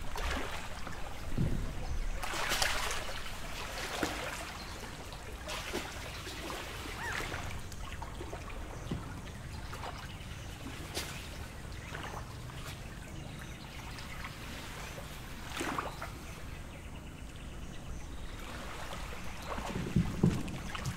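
Lake waves lapping at the shore, a steady wash broken by short splashes every few seconds, with a low rhythmic slapping setting in near the end.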